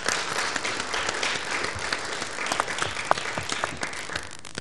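Audience of conference delegates applauding, many hands clapping at once, the clapping slowly dying away toward the end.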